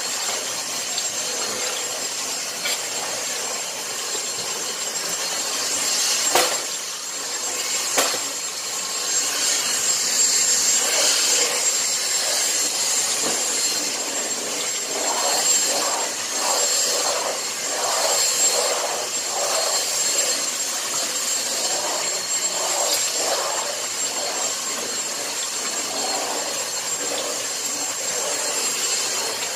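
Cordless stick vacuum cleaner running with a steady high whine, its floor head rubbing back and forth across the floor in a run of rasping strokes through the middle.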